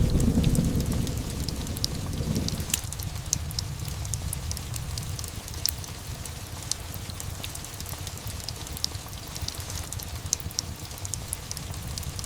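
Steady rain with a fireplace crackling in sharp, scattered pops. The tail of a low thunder rumble dies away in the first few seconds.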